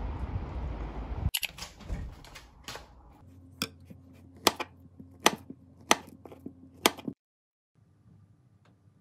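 Kitchen knife slicing through a peeled banana and knocking on the chopping board: a series of sharp taps, several cuts in a row, that stop about seven seconds in. Before the first cut a noisy bed of sound cuts off abruptly.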